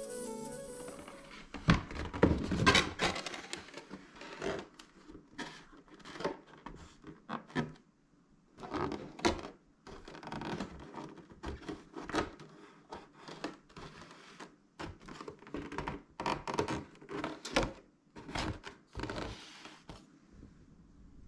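White cardboard cake box handled on a wooden table: an irregular run of knocks, taps and short scrapes of cardboard as it is folded and closed, with the heaviest thumps about two seconds in.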